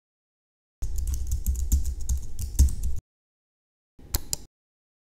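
Computer keyboard typing for about two seconds, rapid key clicks, then after a pause a brief mouse click about four seconds in.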